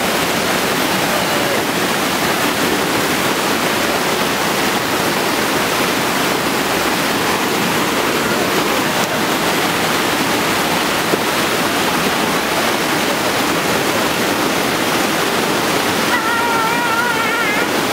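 Waterfall rushing steadily, a constant loud wash of falling water. A short wavering call rises over it near the end.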